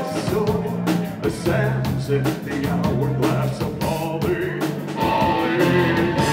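Progressive metal band playing live: pounding drums, electric guitar and keyboard, with a singer's voice over them.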